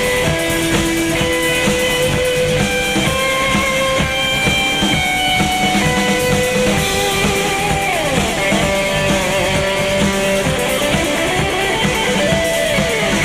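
Instrumental break in a Russian rock song: a guitar plays a melody over a drum kit, with no singing.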